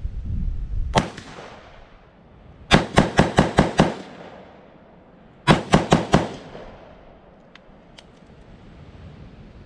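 AR-15-style rifle fired in quick succession: a single shot, then a rapid string of about seven shots, then a burst of about five more.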